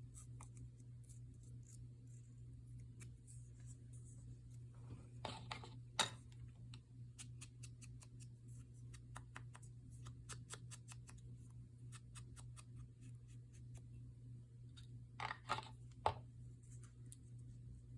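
Scissors cutting paper, faint: a run of small clicks, with two louder snips about five and fifteen seconds in, each ending in a sharp click. A steady low hum lies under it.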